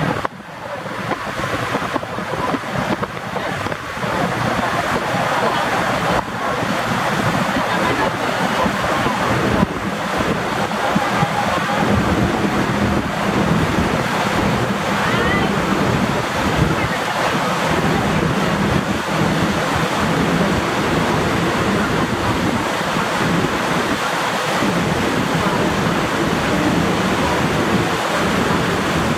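Catamaran fireboat running fast across the harbour: the steady rush of its wake and spray on the water, swelling over the first few seconds, with wind buffeting the microphone and a faint low hum underneath.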